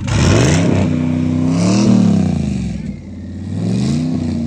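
GMC Sierra pickup's engine revved twice in park: the pitch climbs for about two seconds, drops back, then climbs again near the end.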